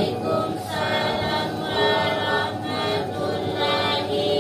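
Group of voices chanting Arabic prayers together in a sing-song unison, led by one reciter reading from a book.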